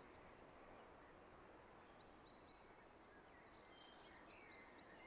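Near silence: faint room ambience with a few faint, short high bird chirps.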